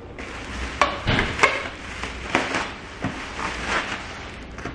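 Plastic wrapping and bubble wrap crinkling and rustling in irregular crackles, with a few sharper clicks, as a wrapped knife block is pulled free of its packaging.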